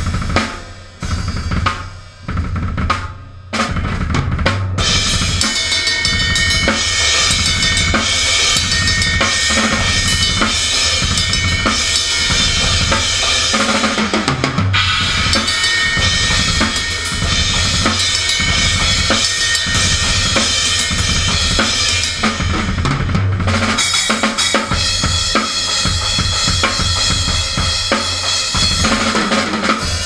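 Drum kit played up close: a steady bass-drum and snare beat under a constant wash of cymbals, with a few brief stops in the first few seconds before the beat runs on without a break.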